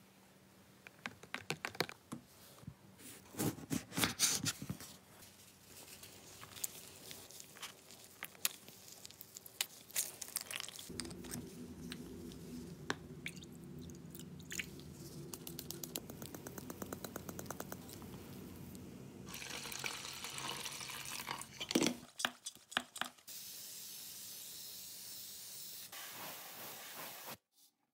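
Workshop handling sounds: a metal spoon tapping and clicking in a glass jar of ground coffee, then liquid dripping and pouring into a plastic measuring cup over a steady low hum. Near the end comes a steady hiss as glossy black paint is sprayed onto parts.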